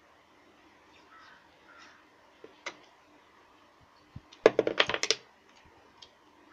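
Black electrical tape being pulled off its roll: a quick crackling run of sharp clicks lasting under a second, about four and a half seconds in, with a few faint clicks of handling before it.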